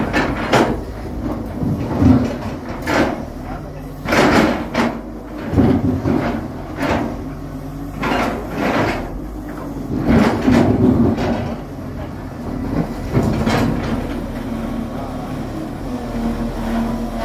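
JCB long-reach excavator's diesel engine running steadily while it works, with irregular clanks and scrapes every second or two.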